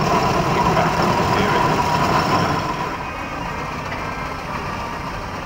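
Steam road roller running as it passes close and moves away: a steady mechanical rumble with a steady whine, louder in the first half and dropping away about halfway through.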